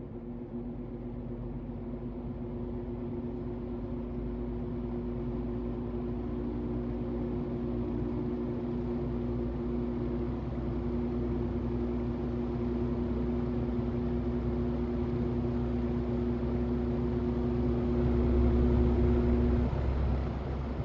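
Vintage General Electric box fan running, a steady motor hum over a rush of moving air that grows gradually louder; the hum stops shortly before the end.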